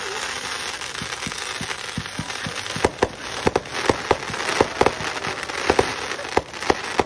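Consumer firework going off: a steady hiss of spraying sparks, with sharp pops starting about a second in that grow louder and come in quick clusters through the second half.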